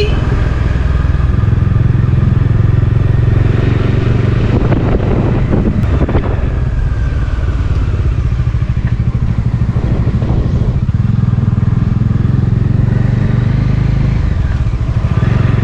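Motorcycle engine running steadily under way, heard from on the moving bike.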